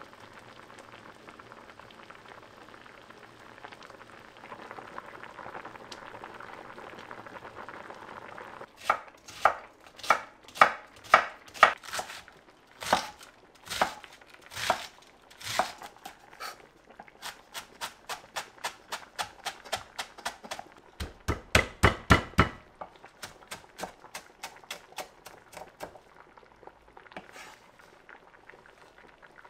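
A pot of kimchi stew bubbling softly for the first several seconds, then a kitchen knife slicing cabbage on a wooden cutting board in separate chops, about two or three a second, with a quick run of rapid chops about two-thirds of the way through.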